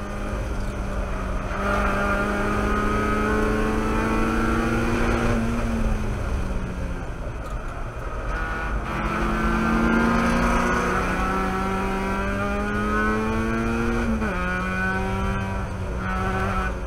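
Mazda Miata race car's four-cylinder engine at speed, heard from inside the cockpit: revs climb under throttle in third gear, fall away about six seconds in, climb again, then drop sharply with an upshift to fourth near the end.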